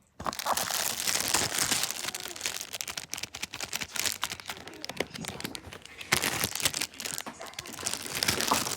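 Packaging being handled and unwrapped, crinkling and rustling continuously with many small sharp crackles.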